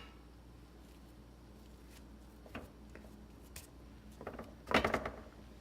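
Quiet kitchen with a few faint clicks, then a short cluster of knocks from metal kitchenware being handled, such as a scoop against a muffin tin or the tin being moved.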